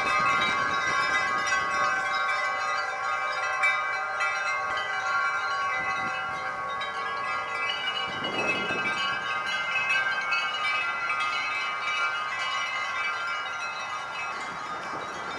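Wind chimes ringing, many overlapping sustained tones that slowly grow fainter.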